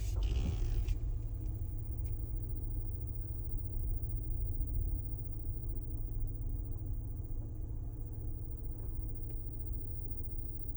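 Steady low droning rumble that holds even throughout, with a brief hissy noise in the first second.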